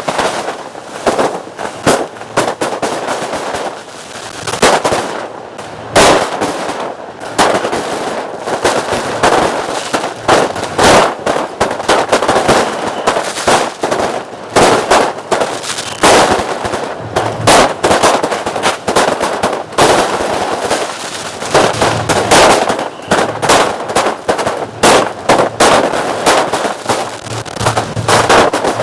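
Fireworks going off: a rapid, irregular string of sharp bangs and crackles with hardly a pause, some bangs much louder than the rest.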